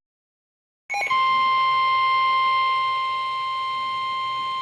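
About a second of dead silence, then a short chirp and a NOAA Weather Radio 1050 Hz warning alarm tone: one steady, high-pitched beep held on, the signal that a new weather warning is about to be read.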